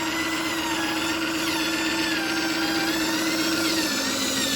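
Radio-controlled model truck running: a steady electric-motor hum that steps down slightly in pitch near the end, with a smooth, warbling high tune over it like the flute-style melody of a telolet basuri horn.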